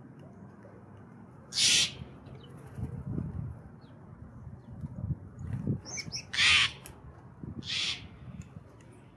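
Steller's jay giving harsh, rasping squawks, three calls spread over several seconds, with a few faint high chirps between them.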